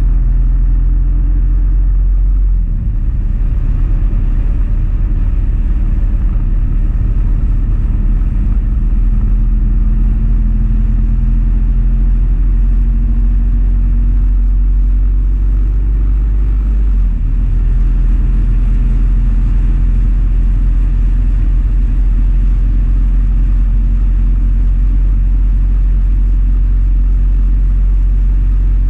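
Motorcycle riding at road speed, heard from a camera mounted on the bike: a steady engine drone under heavy low wind rush on the microphone. The level dips briefly twice, about three seconds in and again about seventeen seconds in.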